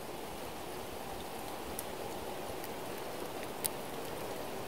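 Steady rustle of wind through autumn trees and dry fallen leaves, with a couple of faint ticks.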